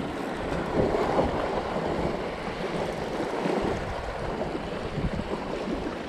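Gale-force wind buffeting the microphone in a steady rumbling rush, with the sea washing against the rocks underneath.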